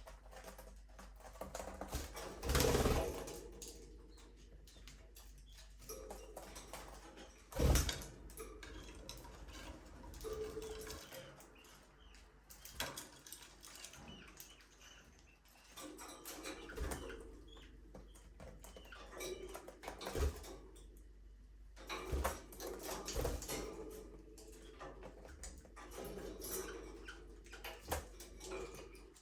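Budgerigars chirping and chattering, with scattered taps and knocks among them, the loudest about three and eight seconds in.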